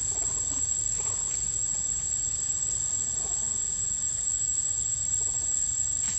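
A steady, high-pitched insect drone, with a low rumble underneath.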